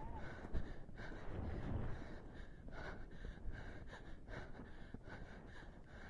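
Horse cantering and blowing out a breath in time with its strides, a little over two breaths a second, with the muffled beat of its hooves and wind on the microphone.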